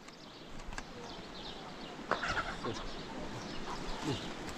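Chickens clucking, with short animal calls scattered through; a louder call comes about two seconds in.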